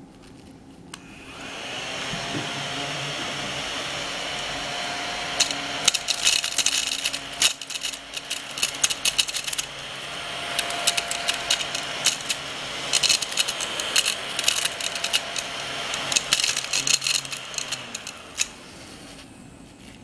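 Ladybug-shaped mini desk vacuum switched on with a click, its small motor running with a steady whirring hiss. In two spells, sunflower seed husks rattle and tick sharply as they are sucked in. The motor stops near the end.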